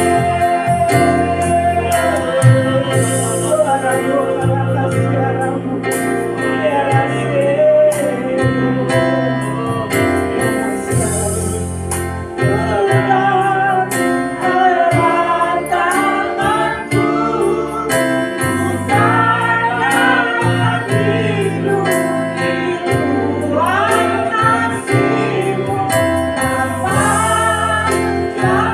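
A woman singing an Indonesian-language worship song into a microphone, with instrumental accompaniment holding sustained chords under the melody.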